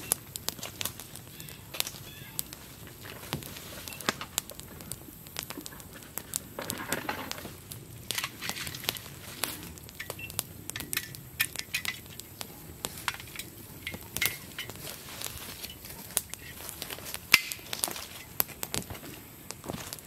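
Dry leaf litter and twigs crunching and crackling underfoot as a person moves about, with irregular sharp clicks and snaps and one louder snap late on.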